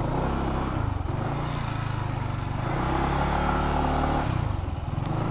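Yamaha NMAX 155 scooter's single-cylinder four-stroke engine running at low revs as the scooter creeps along, its note rising a little in the middle and dropping back about four seconds in.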